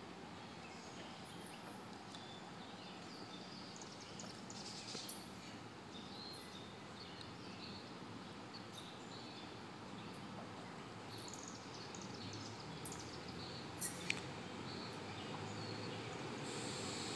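Birds chirping over a steady outdoor hush, while a low rumble from an approaching SEPTA electric commuter train slowly grows louder toward the end. Two sharp clicks a few seconds before the end.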